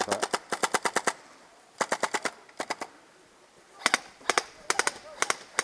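Airsoft guns firing: rapid full-auto bursts of about ten shots a second, the first lasting about a second, then two short bursts, and single or paired shots over the last couple of seconds.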